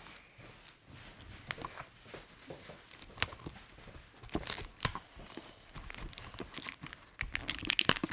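Packaging being torn and crinkled by hand in irregular crackles and rustles, busier and louder toward the end as the pack is worked open.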